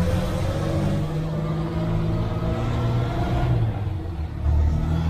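Unimog S404.1's petrol straight-six engine and drivetrain, heard from inside the cab on the road with a newly fitted clutch. The pitch rises steadily as the truck accelerates, then the sound dips briefly about four seconds in and picks up again.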